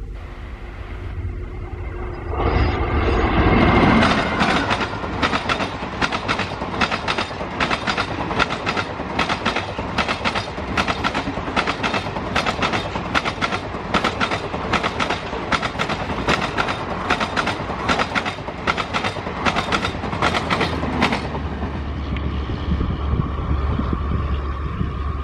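Garib Rath express train passing at speed. After a loud rise in the first couple of seconds, the coaches' wheels click over the rail joints in a fast, even rhythm for most of the pass, then cut off about 21 seconds in, leaving a low rumble.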